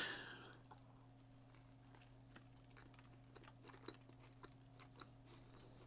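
Faint chewing of a mouthful of toasted pork cutlet sandwich: a few soft scattered clicks over a low steady hum.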